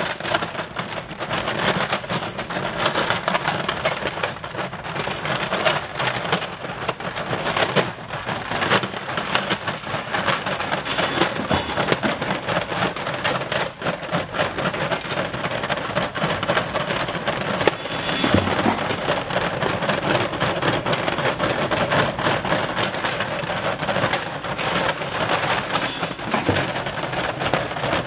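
Magnetic elevating conveyor carrying small stamped steel parts up its stainless slide bed. The parts clink and clatter against the bed and each other in a continuous stream of rapid metallic clicks as the magnets drag them upward.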